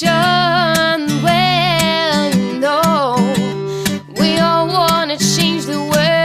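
Background music: a song with strummed acoustic guitar under a sung melody with vibrato.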